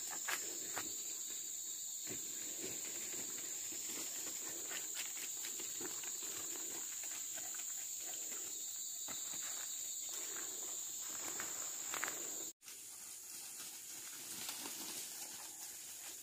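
Steady high-pitched drone of forest insects, with footsteps rustling through dry leaf litter. The drone cuts off suddenly about three quarters of the way through, leaving only the rustling.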